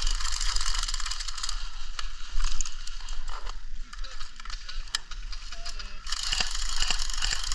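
Rapid mechanical ratcheting clicks from an airsoft magazine being handled. The clicking comes in two spells: for the first two and a half seconds, then again from about six seconds in.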